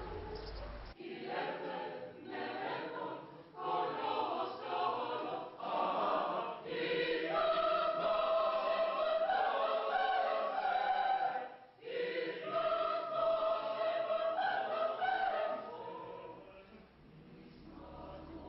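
A choir singing a slow piece in phrases with long held notes. It breaks off briefly about two-thirds through and grows quieter near the end.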